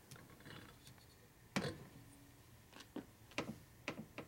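A few light, sharp metallic clicks and taps, the sharpest about a second and a half in, from hands working a wrist-pin retainer clip into the pin hole of a Harley Evolution piston.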